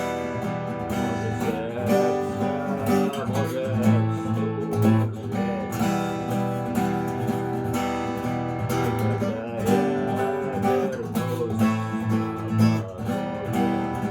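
Acoustic guitar being strummed through a song's chord progression, with a wavering melodic line over the chords twice.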